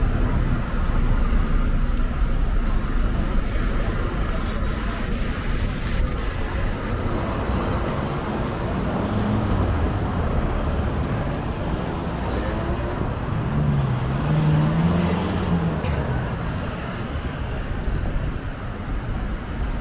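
Busy city street traffic: cars, vans and buses running past with a steady low rumble of engines and tyres, and a few short high squeaks in the first several seconds.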